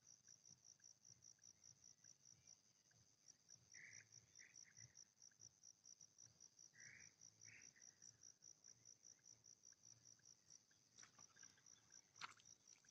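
Faint insect chirping in a steady, even pulse, about four a second, with a couple of short soft higher calls in the middle; the chirping stops near the end.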